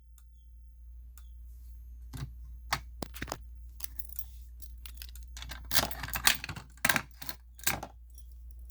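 Irregular plastic clicks and rattles of a manual fire alarm pull station being handled and worked, sparse at first and bunched into a quick run of sharper clicks about six to eight seconds in, over a low steady hum.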